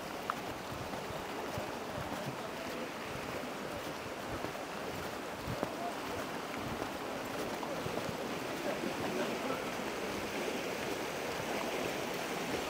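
Steady rushing of river water, the Vilnia flowing close by.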